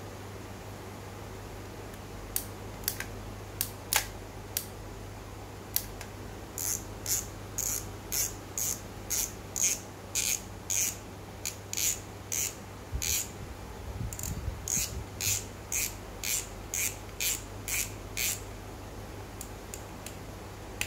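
Shimano Sephia BB C3000SDH spinning reel being worked by hand: a few sharp clicks, then an even run of short rasping clicks about two a second from the reel's mechanism, stopping near the end.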